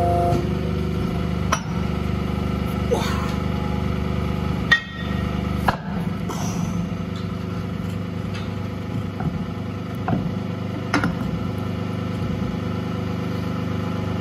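A few sharp metal knocks and clinks from steel parts of a hydraulic cylinder being handled, the loudest about five seconds in. They sit over a steady low hum.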